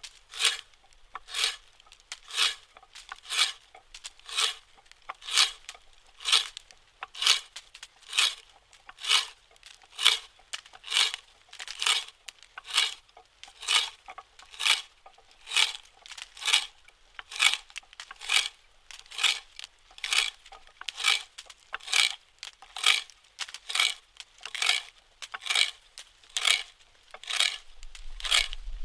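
Hand auger boring into a log: its spiral bit crunches and scrapes through the wood in short, even strokes about two a second as the handle is turned, shavings curling out of the hole.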